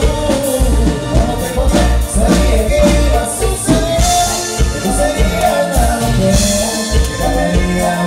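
A dance band playing, with singing over a steady bass-and-drum beat.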